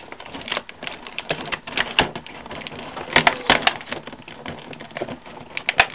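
Stiff clear plastic packaging crackling and clicking irregularly as hands work a toy accessory free from its blister tray, with a few sharper snaps about three seconds in and near the end.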